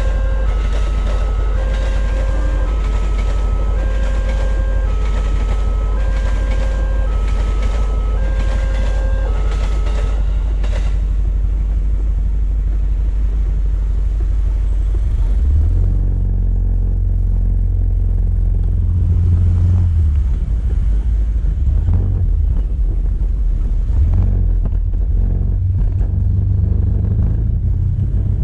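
A railway level-crossing warning bell sounds an alternating two-tone signal that stops about ten seconds in. Later a motorcycle engine pulls away and runs on as it rides, with a low rumble that rises and falls.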